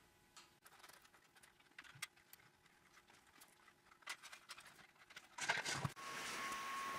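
Faint clicks and taps of a plastic toy model car being handled and turned over. About five and a half seconds in comes a louder rustle, followed by a steady hiss with a thin, high, steady tone.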